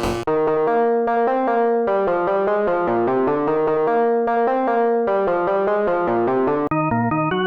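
Synthesized keyboard music with an electric-piano sound: a melody of distinct notes over held low chords. Near the end it switches abruptly to a new, higher-pitched part.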